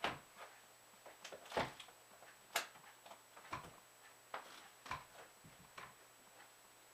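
Metal upholstery staples being pried one by one out of a dining chair's wooden back board, each giving a short, sharp click, about seven at irregular intervals.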